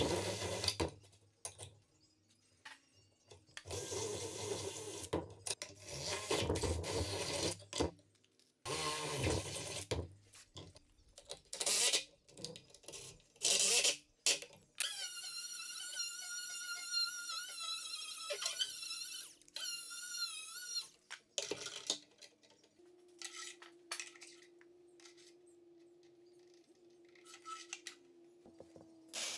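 Cordless drill and Milwaukee M12 stubby impact driver running in repeated short bursts, driving fasteners through steel hinge plates into a wooden stair stringer. About halfway through there is a longer stretch of whining with a wavering pitch, and a quieter steady hum near the end.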